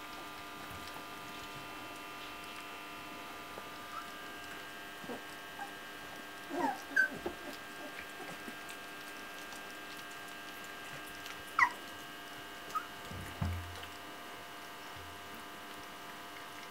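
Young Old English Sheepdog puppies giving short, high squeaks and whimpers a handful of times, with a cluster a little before halfway and a sharp rising squeak about two-thirds of the way in, over a steady hum. A soft low thump comes shortly after the sharp squeak.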